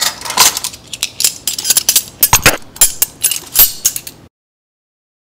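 Metal measuring spoons clinking and a plastic lime juice bottle clicking as lime juice is measured out: a quick run of sharp clicks and clinks that cuts off suddenly about four seconds in.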